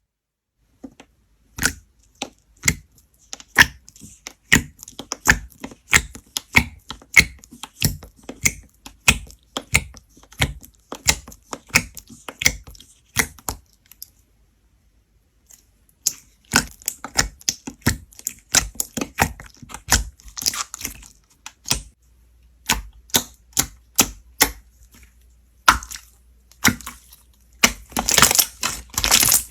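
Slime being squeezed and pressed by hand, giving a run of sharp clicks and pops about two a second. It stops briefly in the middle, and near the end there is a dense stretch of crackling.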